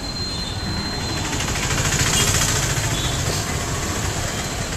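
Busy street traffic: motor scooters and auto-rickshaws running past, swelling louder about two seconds in.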